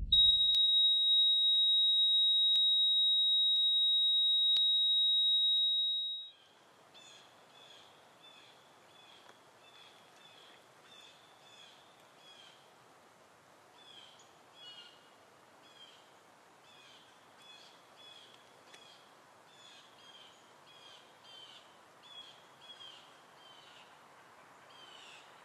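A steady high electronic tone, a heart-monitor flatline, holds for about six seconds and cuts off abruptly. It is followed by very faint birds chirping over quiet outdoor ambience.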